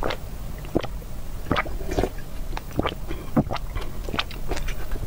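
Close-miked gulping of noodle broth drunk straight from a paper cup: a series of short, wet swallows and mouth clicks, roughly two a second.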